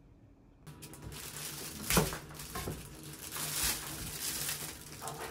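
Hands at work at a stainless-steel kitchen sink: a rustling, splashing noise starts about a second in and carries on, with one sharp knock about two seconds in, the loudest sound.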